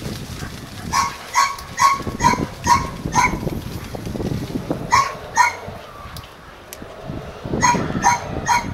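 Dog barking in short runs: six quick barks about two a second, a pair, then three more near the end.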